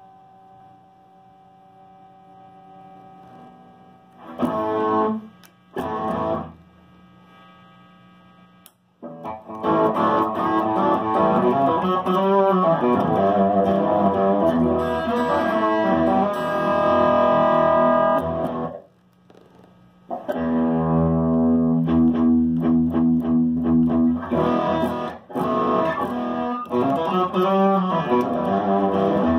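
Fender electric guitar played through a handbuilt Trainwreck Express-replica tube amp head, overdriven. A chord rings out and fades, two short chord stabs come about four and six seconds in, then continuous chords and riffs follow with a brief pause about two-thirds of the way through.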